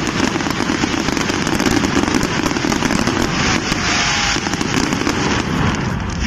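Fireworks going off in a dense, nonstop barrage of rapid crackling and popping bangs, with a hissing rush of sparks about three and a half seconds in.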